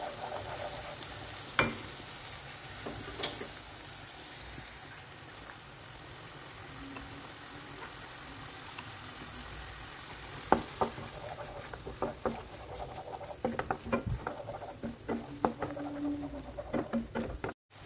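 Wooden spatula stirring and scraping a thick spice paste frying in a non-stick wok, with a steady soft sizzle. The spatula knocks sharply against the pan now and then, more often in the last several seconds.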